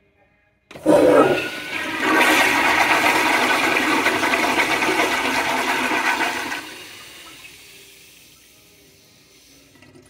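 Flushometer-valve flush of a 1980s American Standard Instanto toilet: water rushes in suddenly about a second in and runs loud for about five seconds, then drops to a quieter trickle as the bowl refills.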